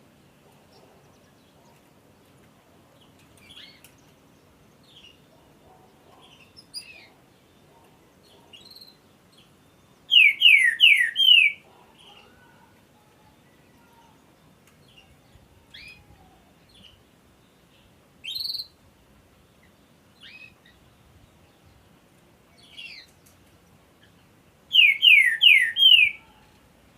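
Green-winged saltator (trinca-ferro) singing: two loud phrases of four quick descending notes, each about a second and a half long, one about ten seconds in and one near the end, with a single loud note between them. Soft short call notes are scattered throughout.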